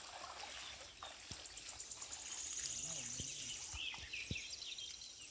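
Outdoor ambience of birds chirping in short, quick call notes, with a fast, high, pulsing trill starting about two seconds in and lasting around a second and a half.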